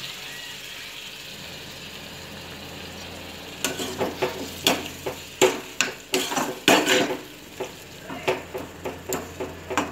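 Drumsticks and masala sizzling steadily in a kadai; from about three and a half seconds in, a metal spatula scrapes and knocks against the pan in quick, irregular strokes as the mixture is stirred.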